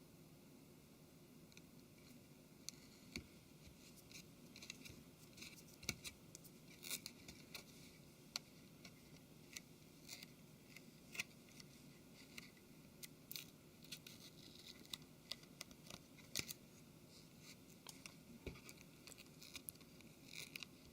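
Faint, irregular small clicks, taps and light scraping as a smartphone's parts are handled and worked with small tools during disassembly.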